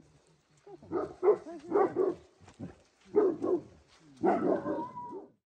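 Large dogs barking and yelping in four short bursts, the last one longer, before the sound cuts off suddenly.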